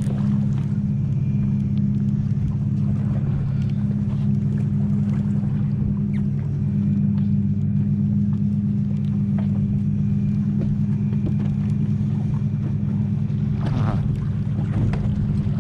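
Boat engine idling with a steady low hum.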